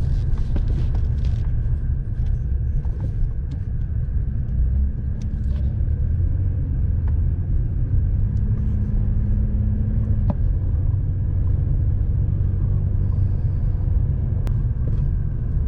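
Steady low rumble of engine and road noise inside a moving car, with a faint steady whine held high above it.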